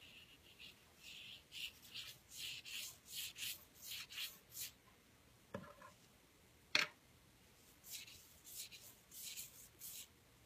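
Paintbrush bristles scrubbing across paper in short strokes, about two a second, wetting a watercolor-pencil drawing. Partway through, a short knock and then a sharper, louder knock as the brush goes to the glass of water, followed by more strokes.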